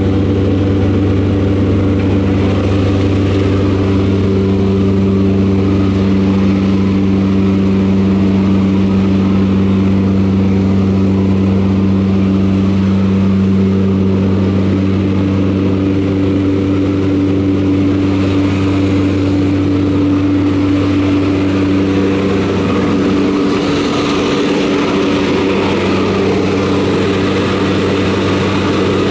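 Propeller aircraft engines running with a steady drone inside the cabin of a jump plane. Near the end a rushing noise of air grows louder as the jump door stands open in flight.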